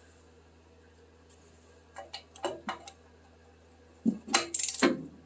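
Metal hand tools clinking and knocking: a few light taps about two seconds in, then a louder clatter of metal on metal near the end.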